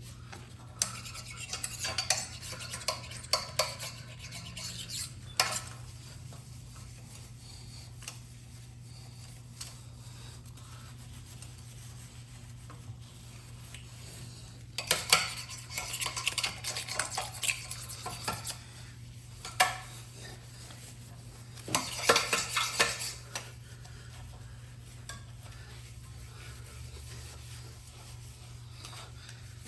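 Metal parts and tools clinking and clattering in several bursts of handling, over a steady low hum.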